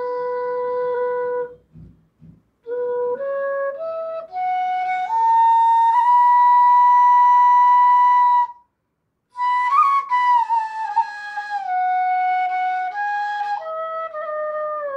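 Punam Flutes bamboo bansuri played solo. It holds a low note, takes a short breath, then climbs the scale note by note to a long high note held for about three seconds. After a brief pause it comes back down step by step, with a quick ornament near the top of the descent.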